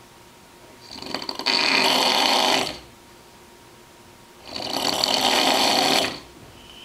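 Snoring: two long, loud snores about three and a half seconds apart, each swelling up and then stopping.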